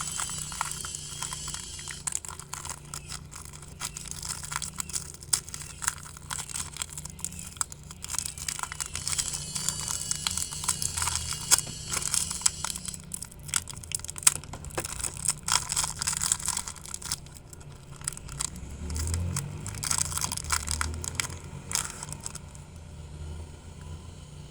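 Foil wrapper of a Pokémon booster pack crinkling and tearing as it is opened by hand, with dense, irregular crackles that die away near the end. A faint low rumble rises and falls a little before that.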